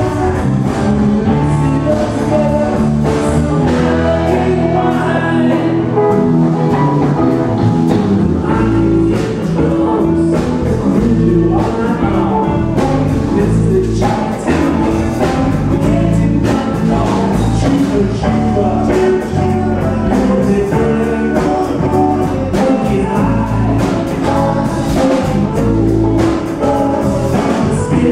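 A rock band playing with electric guitars and drums, with a singer over it.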